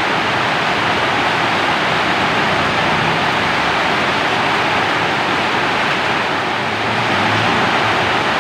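Steady rain falling, an even, unbroken hiss with no single drops standing out.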